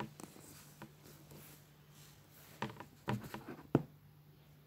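Hands gathering kinetic sand and pressing it onto a plastic cylinder mould: soft rustles and scrapes with a few light knocks, a cluster about two and a half seconds in and a sharper single knock near the end. A faint steady low hum underlies it.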